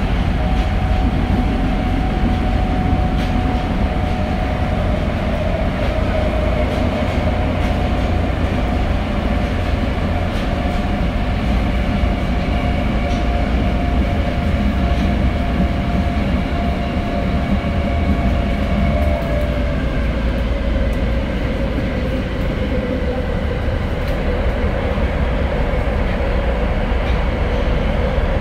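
Tokyo Metro 02-series subway train running through a tunnel, heard from inside the car: a steady rumble of wheels and running gear with a drawn-out motor whine that slowly drops in pitch over the second half.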